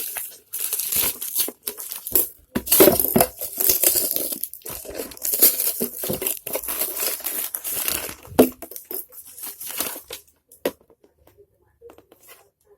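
Parcel packaging being torn open and crinkled by hand, a dense run of irregular crackling and ripping that thins to a few clicks and handling sounds about eight and a half seconds in, then stops.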